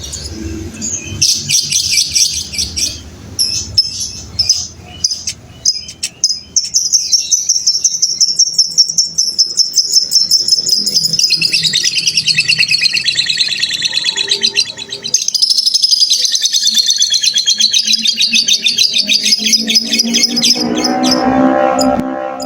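Lovebird singing a long ngekek: a rapid, continuous chattering trill of high repeated notes that starts about six seconds in and runs for some fourteen seconds, with a brief break midway. Short scattered chirps come before it, and a lower-pitched call comes near the end.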